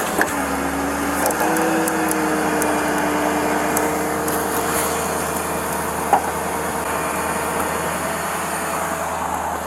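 Tow truck winch pulling under load with the truck engine running: a steady hum that steps up slightly in pitch about a second and a half in and holds, with a few light clicks.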